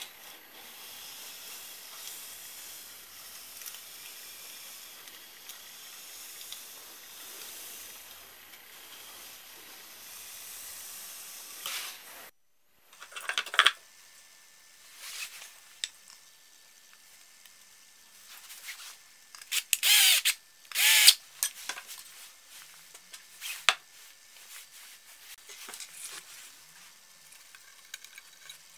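A steady hiss for the first twelve seconds, then, after a cut, wooden boards being handled on a workbench: scattered knocks and scrapes with a few short louder bursts of a hand tool.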